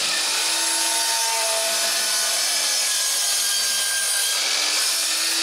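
DeWalt miter saw running at full speed, its blade cutting through a plastic cutting-board strip, a steady loud whine.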